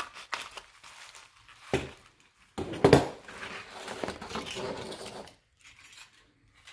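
Scissors snipping open a paper jewelry pouch, a clatter about three seconds in as the scissors are set down on the table, then paper and an organza bag rustling as the bag is pulled out.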